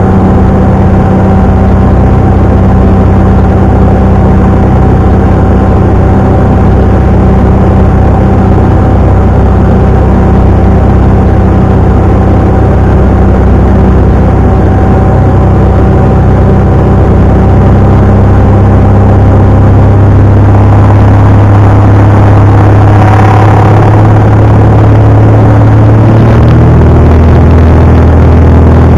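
Jabiru light aircraft's piston engine and propeller running steadily, heard loud from inside the cockpit while taxiing. The engine note drops in pitch about 26 seconds in as the revs come down.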